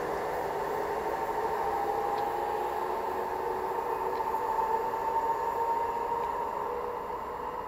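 Electric multiple-unit passenger train running away along the line: a steady rail rumble with a faint, slightly rising whine, fading near the end.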